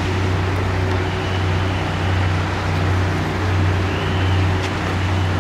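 Steady rumble of road traffic with a constant low hum under it.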